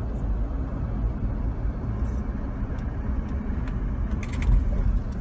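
Steady low rumble of road and engine noise inside a moving car's cabin, with a few faint clicks near the end.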